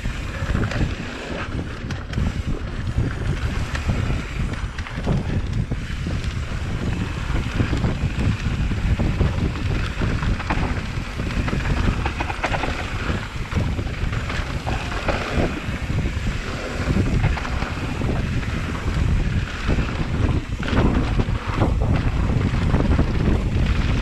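Wind rushing over an action camera's microphone on a moving mountain bike, with the scattered knocks and rattles of a Canfield Brothers EPO hardtail riding over a rough dirt trail.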